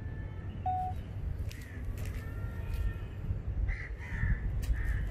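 Crows cawing in several short calls, most of them in the second half, over a low rumble.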